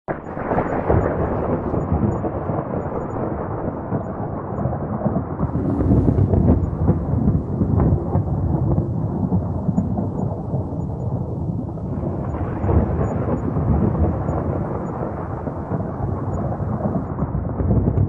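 Rolling thunder: a continuous low, heavy rumble that swells and ebbs, growing louder about six seconds in and again about thirteen seconds in.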